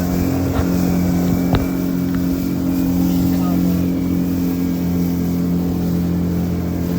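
Honda 50 hp four-stroke outboard motor running at a steady speed, with one sharp click about a second and a half in.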